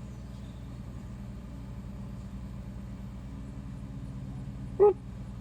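A steady low hum throughout, with one short, pitched vocal hoot near the end, a man making a silly noise with his voice.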